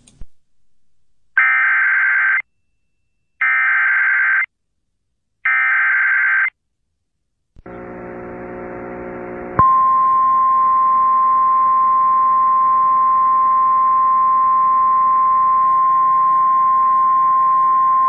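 Emergency Alert System header on an FM broadcast: three short bursts of warbling data tones, each about a second long and a second apart. Then a faint hiss with a low hum, and from about halfway a loud, steady single-pitch attention tone over the hiss, marking the start of a weather warning.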